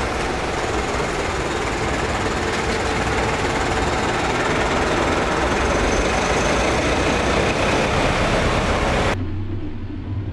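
Mercedes-Benz Unimog U 5023's diesel engine running as its large off-road tyres churn and splash through deep water, a loud, steady, noisy rush. About nine seconds in, the sound cuts abruptly to a quieter, steady low engine drone.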